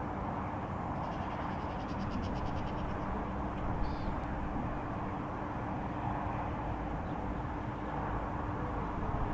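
Outdoor ambience: a steady low rumble with a constant low hum. About a second in, a quick run of high ticks lasts a couple of seconds, and a single short high chirp follows.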